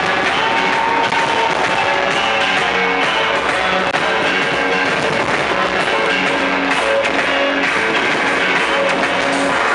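Loud music, with short held notes changing every half second or so.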